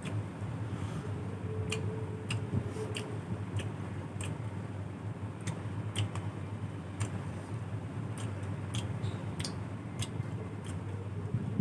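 A person chewing chicken curry and puffed rice, with sharp, irregular wet mouth clicks and lip smacks, over a steady low hum.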